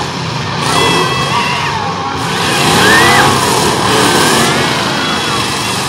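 Engines of several demolition-derby pickup trucks revving hard in the arena, their pitch rising and falling repeatedly, loudest about three seconds in, over a dense steady noise.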